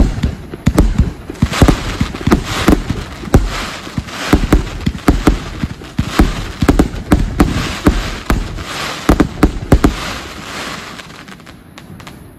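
A 100-shot, 30 mm calibre fireworks compound cake firing: a rapid run of sharp reports, several a second, that thin out and die away in the last couple of seconds.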